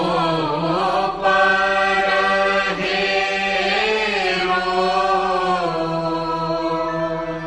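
Hindu devotional guru vandana chant: a voice sings long held notes that bend slowly in pitch, over a steady drone.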